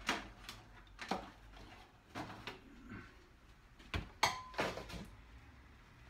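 Knocks and clatter of portable test equipment being moved and set down, with a short electronic beep about four seconds in.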